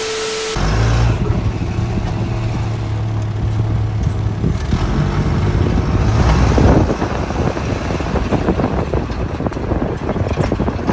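A brief TV-static transition effect with a steady tone, then a vehicle engine running steadily at driving speed with wind rushing over the microphone, swelling louder for a moment about six seconds in.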